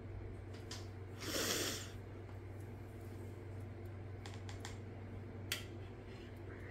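Quiet room with a steady low hum, a short breathy rustle about a second and a half in, and a few faint clicks later on.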